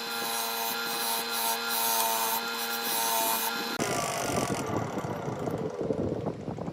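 A power tool's motor running steadily on wood, switched off about four seconds in and winding down with a falling whine, followed by irregular scraping sounds.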